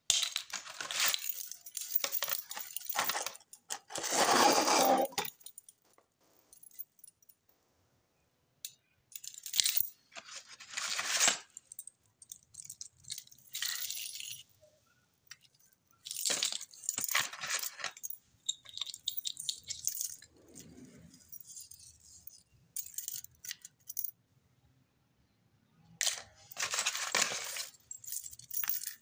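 Metal wristwatches with link bracelets and bangles jangling and clinking as they are rummaged through and shaken in the hand, in about six separate bursts with near silence between them.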